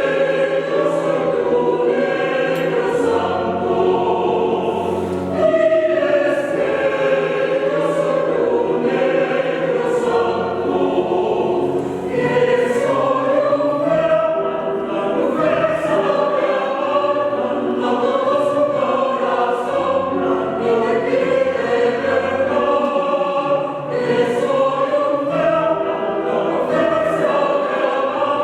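A choir singing in several voice parts without a break.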